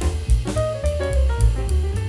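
Background music: jazzy instrumental with drum kit and bass keeping a steady beat.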